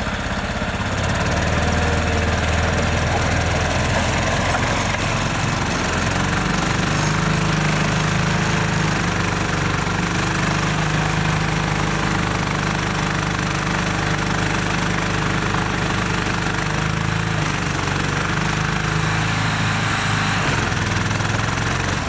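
Engine of a six-wheel-drive Argo amphibious ATV running steadily under load as the chained tires churn through deep mud. Its pitch steps up about six seconds in and shifts again about twenty seconds in.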